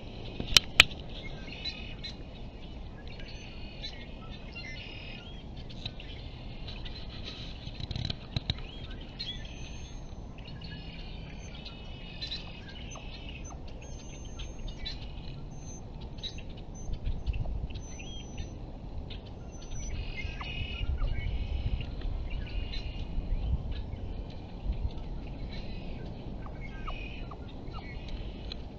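Wild birds calling and chirping repeatedly over a low background rumble, with two sharp clicks just after the start.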